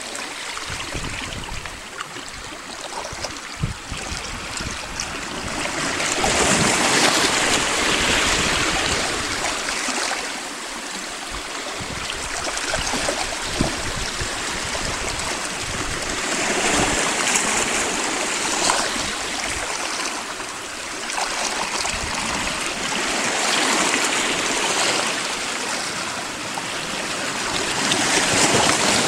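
Small sea waves washing in and out around boulders and cobbles, sloshing and gurgling. The wash swells and eases about four times.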